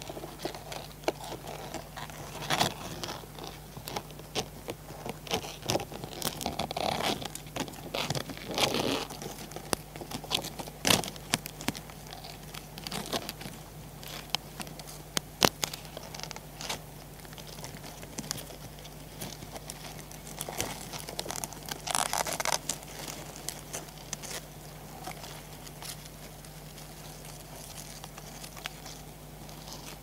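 Land hermit crabs moving their claws and shells up close: irregular clicks, scrapes and creaks of shell. They come thick during the first ten seconds and again about twenty-two seconds in, and thin out toward the end.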